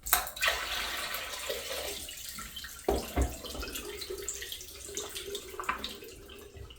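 Miniature open-rim toilet flushing: water rushes suddenly into the bowl and slowly trails off, with a knock about three seconds in.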